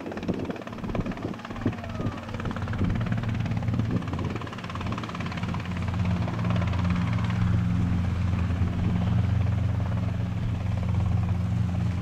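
Robinson R22 helicopter's engine and rotor running close by. The sound is uneven at first, then from about halfway settles into a louder, steady low hum.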